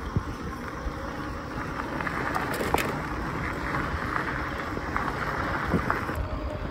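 Fat tyres of an Ecotric fat-tire e-bike rolling over a rough, patched road surface, a steady rushing noise with a few sharp knocks from bumps around the middle.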